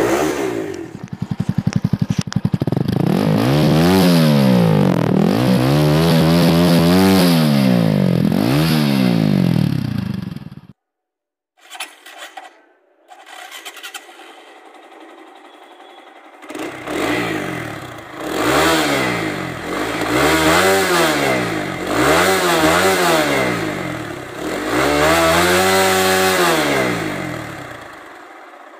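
TVS Apache RTR 200 4V's single-cylinder engine on its stock exhaust, revved again and again while the bike stands still. The note rises and falls every second and a half to two seconds. The revving breaks off for a few quieter seconds near the middle, then a second run of revs follows.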